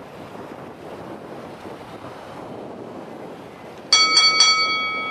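Wind buffeting the microphone over a steady wash of water. About four seconds in, a high bell-like metallic ring is struck three times in quick succession, then rings on and slowly fades.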